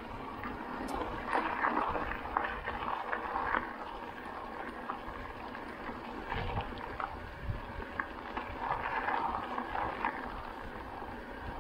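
Electric mountain bike riding over a rough track, its tyres making a steady rolling noise with many small clicks and crackles, and wind rumbling on the action camera's microphone.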